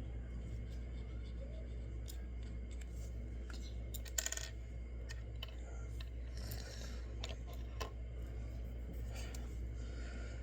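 Light clicks and taps of small plastic and wooden kit pieces and tools being handled on a tabletop, with a sharper cluster of clicks about four seconds in and a brief rustle a little later, over a steady low hum.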